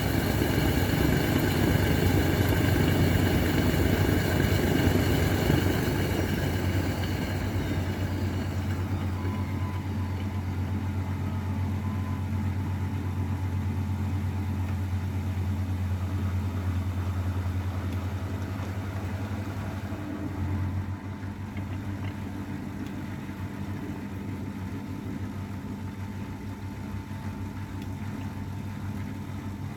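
A 32-year-old AEG Öko-Lavamat 693 washing machine running: a high motor whine that slides down and fades over the first several seconds, over a steady low hum that cuts out about two-thirds of the way through.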